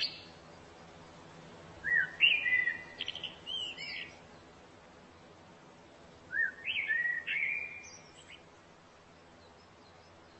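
A songbird singing two phrases of quick, gliding whistled notes, each about two seconds long, the first about two seconds in and the second about six seconds in.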